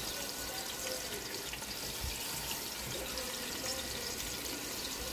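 Seasoned chicken thighs frying skin side down in hot oil in a pot: a steady sizzle.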